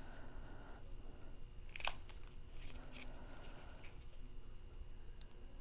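Cardstock pieces being handled and pressed into place on a table: faint paper rustling with a few light clicks and taps, the clearest about two seconds in.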